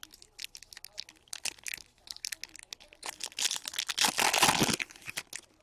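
Trading cards and their packaging handled at close range: a run of small clicks and flicks, then about two seconds of crinkling a little past the middle.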